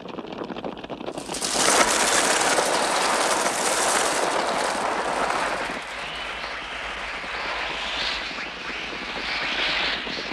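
Film sound effects of a crow attack: a dense rush of many crows' wings and cries that swells up about a second and a half in, with children's running feet pounding. The crow sounds are electronically produced effects rather than field recordings.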